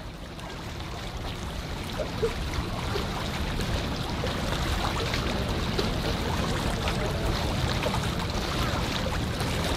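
Outdoor riverside ambience: wind on the microphone over small waves lapping, a low rumbling hiss that swells up from silence over the first few seconds.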